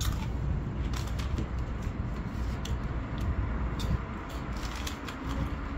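Crinkling of a plastic snack bag being handled and crunchy snacks being chewed close to the microphone: a run of sharp, irregular clicks and crackles over a steady low background rumble.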